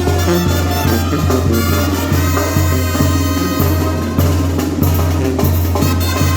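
Mexican banda of child musicians playing: brass horns over a pulsing bass line and drum beat.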